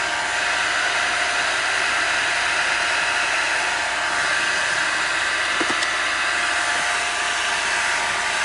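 Car's ventilation blower fan running, a steady rush of air inside the cabin with a faint hum under it.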